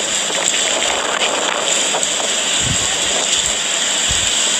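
Storm of wind and driving rain: a steady loud hiss, with gusts buffeting the microphone in low rumbles twice in the second half.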